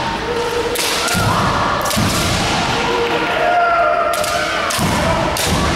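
Kendo bout: fighters' long held kiai shouts, with several sharp cracks and thuds from bamboo shinai strikes and stamping feet on the wooden hall floor.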